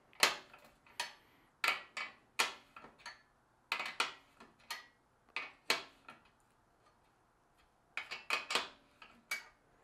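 Ratcheting wrench clicking on a bike's 18 mm rear axle nut as it is swung back and forth to loosen the nut, in separate sharp clicks a few per second. The clicks stop for about two seconds near the end, then start again.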